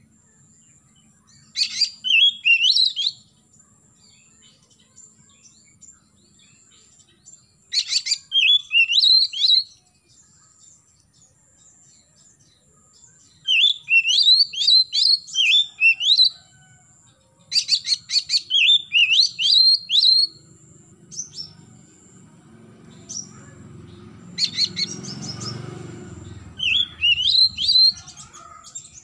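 Oriental magpie-robin singing in short repeated phrases of quick sliding whistled notes, each phrase opening with a rattle of sharp clicks, with pauses of a few seconds between phrases.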